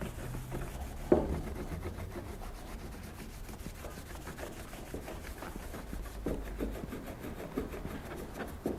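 A cloth rubbing in steady strokes over the surface of an alabaster tray as it is polished. There is a sharp knock about a second in and a few lighter taps later on, as the tray shifts on the bench.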